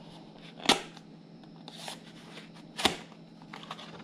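A knife slitting the seal of a white cardboard box and its flap being pulled open: paper scraping and rustling, with two sharp clicks about two seconds apart.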